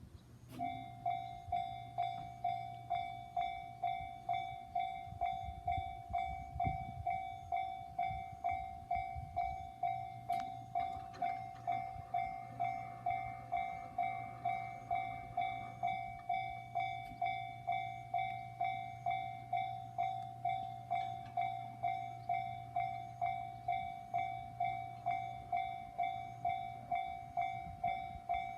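Japanese railway level-crossing warning signal: an electronic bell tone ringing in a steady, even pulse a little under twice a second, starting about half a second in.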